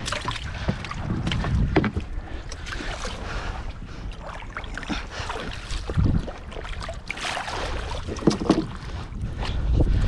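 Water splashing and lapping as a small wooden boat is poled through shallow water, under wind buffeting the microphone, with a few sharp wooden knocks.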